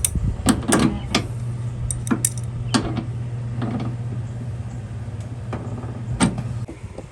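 Scattered metallic clicks and knocks of caps and fittings being handled on a mini-split's refrigerant service valves, over a steady low mechanical hum that cuts off about six and a half seconds in.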